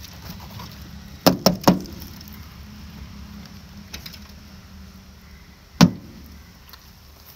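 Sharp knocks on the rusted sheet-metal body of an old Hindustan Ambassador as a gloved hand pulls dry leaves out from under the bonnet's edge: three quick knocks about a second in, and one more near six seconds.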